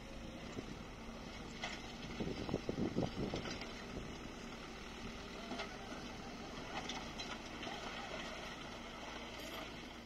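Dump truck's engine running steadily while its bed tips up and dumps a load of dirt and rock, with a louder stretch of low rumbling about two to three seconds in.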